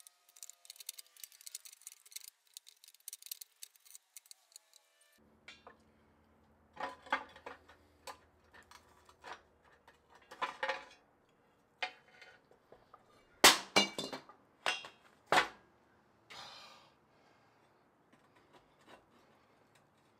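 Metal parts of a 1938 Craftsman scroll saw being handled during disassembly: light rattling for the first few seconds, then a series of sharp metal knocks and clinks, the loudest two near the middle, and a brief scrape.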